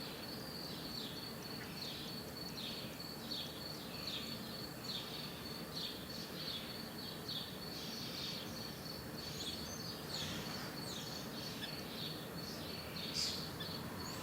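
Birds calling over and over with short, quick downward chirps, under a steady high-pitched tone and a low background hum.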